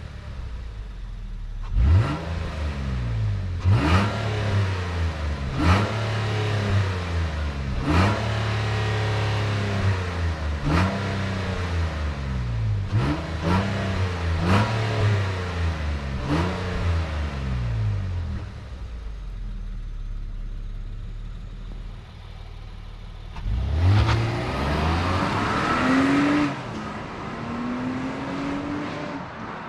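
The 3.5-litre petrol V6 of a 2023 Nissan Pathfinder accelerating at full throttle. Revs climb and drop back at each upshift of the nine-speed automatic, about every two seconds. It eases off after about 18 seconds, then pulls hard again briefly near the end.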